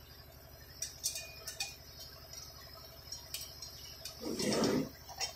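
Small clicks and knocks of chandelier parts being handled, then a short louder scrape about four seconds in as a round metal plate is pressed onto the chandelier's base, over a steady low hum.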